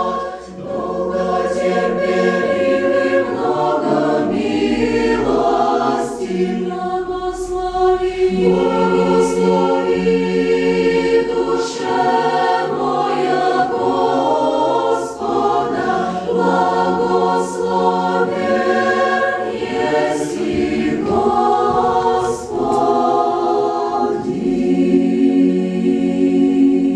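Women's choir singing in harmony, voices holding long chords that shift from one to the next.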